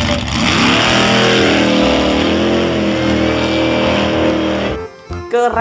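A motor vehicle engine running under a steady rush of road noise, its pitch wavering slightly. It cuts off suddenly near the end.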